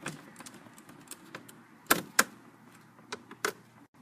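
Scattered sharp clicks and taps of a screwdriver and small screws against a laptop's plastic screen frame, with two louder clicks close together about two seconds in.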